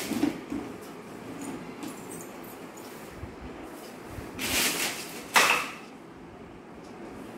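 Short handling noises: a brief rustle at the start, another lasting about half a second around four and a half seconds in, then a sharp knock with a short rustling tail about a second later, the loudest sound.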